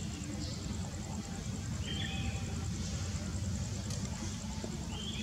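Outdoor ambience: insects chirring in a steady, even high pulse over a low steady rumble, with a few short high squeaks about half a second in, about two seconds in and near the end.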